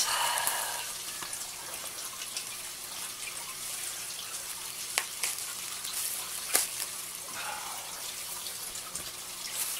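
Steady trickle of running water from an aquarium, with two sharp light clicks about five and six and a half seconds in.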